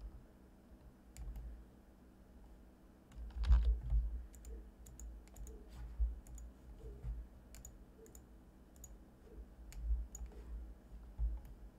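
Scattered computer mouse and keyboard clicks, faint and irregular, with a few soft low thumps, the loudest about three and a half seconds in.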